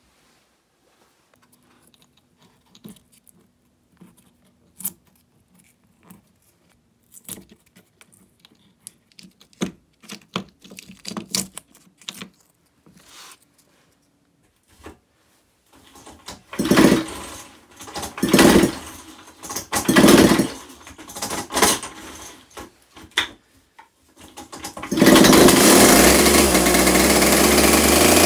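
Druzhba-4 two-stroke chainsaw being started for the first time after restoration: about five hard pulls on the starter cord turn the engine over, and about 25 s in it catches and runs steadily and loudly. Before that, only light clicks and taps of small parts being handled.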